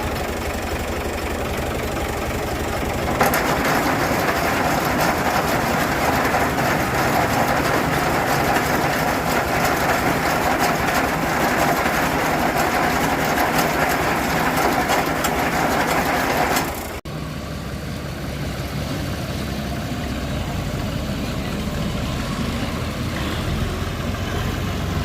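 Tractor engine running steadily. About three seconds in a louder, noisier machine sound joins it; this cuts off suddenly about two-thirds of the way through, leaving the engine idling lower.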